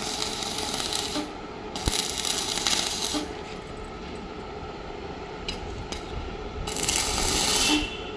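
Electric arc welding: the arc crackles and hisses in three bursts of one to one and a half seconds, each stopping sharply as the arc is broken. A low steady hum lies underneath.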